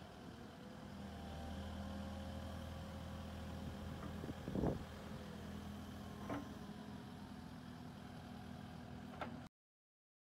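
Kubota KX080-4 midi excavator's diesel engine running as the boom and bucket are worked, its note picking up about a second in. There is one sharp clunk midway and a couple of lighter clanks later, and the sound cuts off suddenly near the end.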